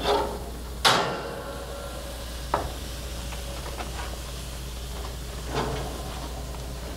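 Tomato slices and burger buns sizzling on the hot grates of a gas grill, over a steady low hum. A sharp metallic clank rings out about a second in, and a few lighter knocks follow as the buns are turned by hand.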